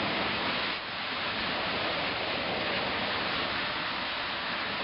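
Steady rushing noise of water, dipping slightly about a second in.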